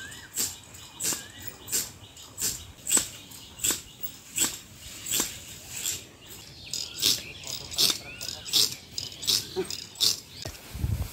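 Crop sprayer being worked to spray litchi fruitlets, making a rhythmic hiss about three times every two seconds.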